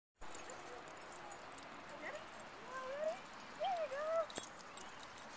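A dog whining: a few short, high whimpers that rise and fall in pitch around the middle, followed by a single sharp click.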